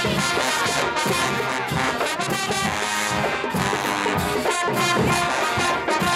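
HBCU-style marching band playing, with the brass section loud and trombones and trumpets to the fore.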